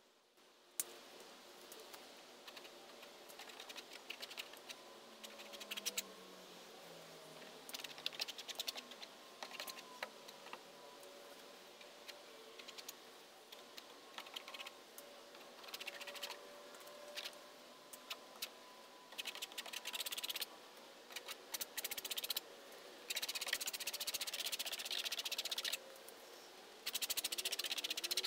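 Palette knife scraping and dabbing thick paint across a canvas: bursts of rapid, scratchy clicks that come in clusters, densest and loudest in the last few seconds.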